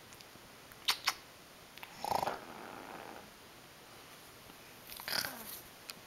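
African grey parrot making raspy snoring sounds, one about two seconds in and a shorter one near the end: a snore the owner suspects he copied from a person snoring at night. Two sharp clicks come about a second in.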